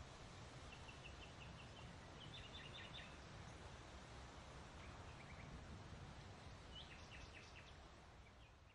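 Faint outdoor ambience with a low rumble, and birds chirping in several short runs of quick high chirps. The sound fades out at the very end.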